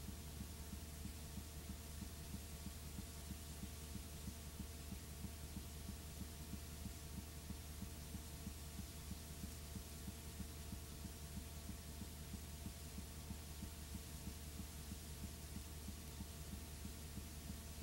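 Steady low electrical hum with a faint hiss over it and a few thin, constant higher tones; nothing else happens.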